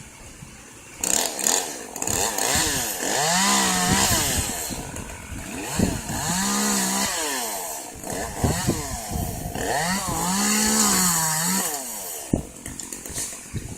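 Chainsaw revved up three times, each burst about two seconds long with a short drop back to idle between, and a sharp click near the end.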